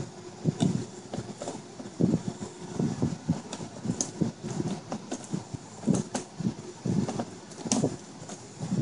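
Hand screwdriver driving a screw into a BMW front kidney grille, with irregular small knocks and clicks of the tool and fingers against the plastic, a few each second.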